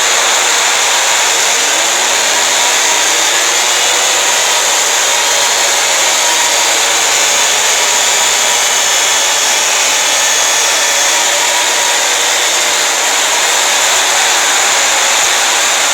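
Fan-made Emergency Alert System alarm, distorted into a loud, steady wall of harsh noise with faint sweeping tones buried in it.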